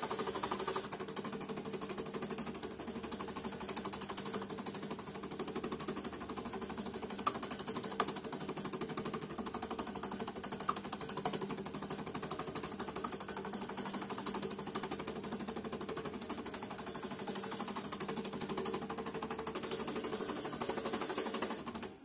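JACK JK-T1906 pattern tacker's motors driving the clamp frame through a trace of a newly programmed pattern without stitching. It is a steady, fast-pulsing mechanical buzz with a few sharp clicks, and it cuts off near the end when the trace is done.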